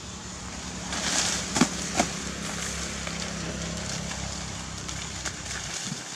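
Leaves and twigs rustling as a baby monkey hangs and clambers in a leafy tree, with two sharp snaps about one and a half and two seconds in, over a steady low hum.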